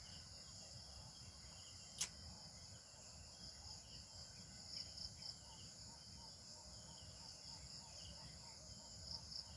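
Faint, steady chorus of insects trilling high, with one sharp click about two seconds in and a short run of soft, evenly repeated chirps in the middle.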